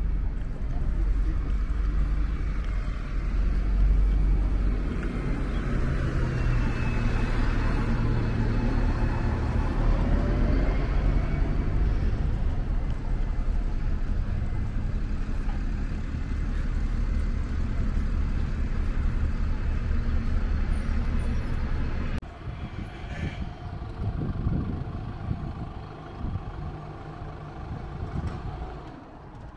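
Road vehicle engines running, with a heavy low rumble that stops suddenly about 22 seconds in, leaving quieter street sound.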